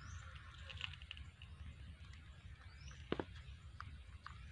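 Faint outdoor background: a few short, high, rising chirps and scattered small clicks, with one sharper click about three seconds in.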